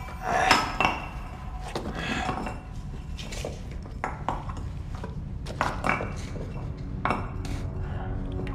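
A metal tool striking and chipping at a plastered wall in irregular blows, about a dozen sharp metallic clinks with a short ring after each, over a steady low rumble.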